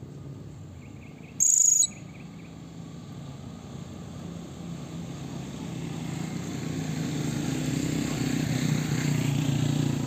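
Blue-crowned hanging parrot (serindit) giving one short, shrill, high-pitched call about a second and a half in. A low rumble builds up and grows louder through the second half.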